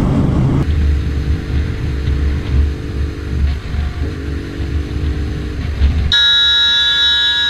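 Motorcycle engine running with a low rumble, then a vehicle horn blares, held steady for about two seconds near the end.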